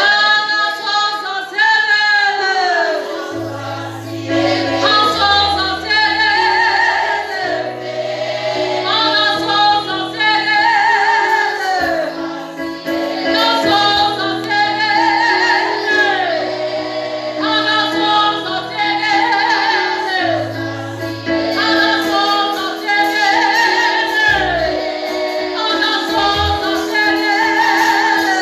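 Gospel singing: voices, a woman's among them, sing swooping, wavering phrases over an accompaniment of sustained bass notes that change every second or two.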